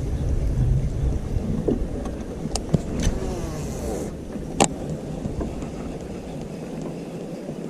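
Strong wind buffeting the microphone in a low rumble, with three short sharp clicks about two and a half, three and four and a half seconds in.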